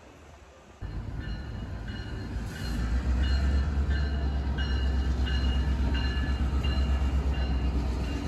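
Diesel freight locomotives of a Chicago South Shore & South Bend freight train passing close by with a deep steady engine rumble. The sound starts abruptly about a second in, and a short high ding repeats about twice a second over it.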